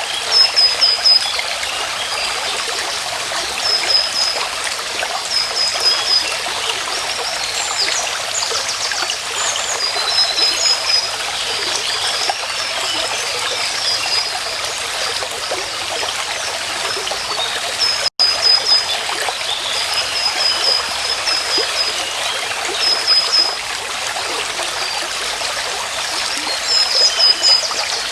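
Stream water trickling and babbling steadily, with short high chirps repeating over it every second or two. The sound breaks off for a split second about 18 seconds in.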